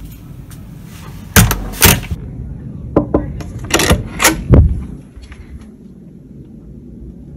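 A wooden door being handled: about six loud thuds and clunks, two close together near the start and a quicker cluster a few seconds in.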